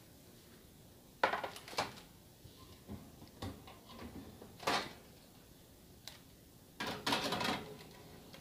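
Metal baking tray knocking and scraping as it goes onto an oven's wire rack, with the oven door being handled: a handful of separate sharp knocks and clatters, the longest rattling burst about seven seconds in.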